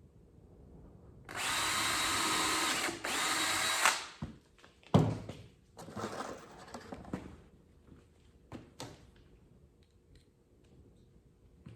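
DeWalt cordless drill running steadily for about two and a half seconds, briefly easing off once, as it drives a screw into the birdhouse's wooden top piece. After it stops come a few knocks and handling sounds.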